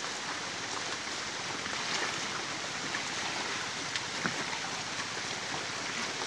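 Steady rain falling on the river and wet rock: an even hiss with scattered small drip ticks.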